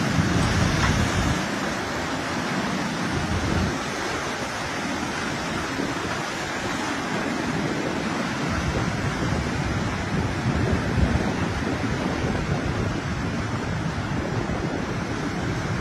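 Tsunami surge flowing inland over flooded ground: a steady rush of turbulent water, loudest in the first second or so.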